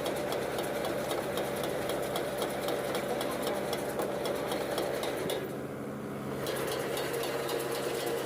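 Mahindra 475 tractor running with its baler: a steady engine hum with rapid, regular ticking from the machinery, which fades briefly about five and a half seconds in.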